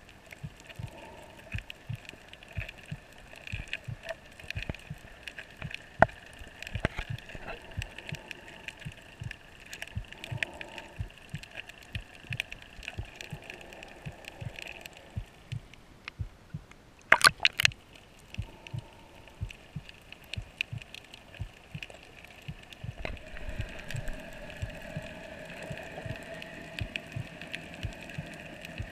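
Underwater sound on a coral reef: irregular sharp clicks and crackles over a faint steady hum, with a short burst of loud clicks a little past halfway. The hum grows stronger near the end.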